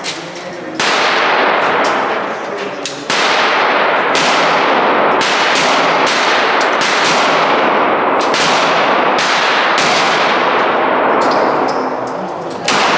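Pistol shots fired at an irregular pace, about a dozen in all, some in quick pairs. Each shot has a long echoing tail from the indoor shooting range.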